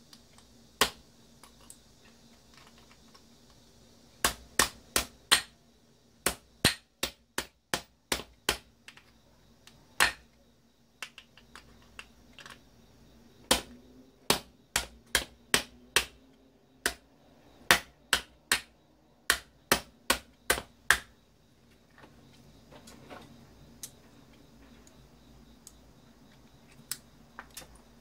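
Hammer striking a small copper-wound part from a vacuum cleaner, set on an iron dumbbell used as an anvil, to break it open for its copper. About thirty sharp metallic blows come in irregular runs and stop about 21 seconds in, followed by a few faint handling clicks.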